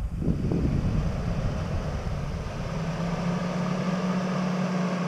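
Jeep Grand Cherokee's engine running as the SUV crawls through a snowy, icy rut, settling into a steady drone about halfway through.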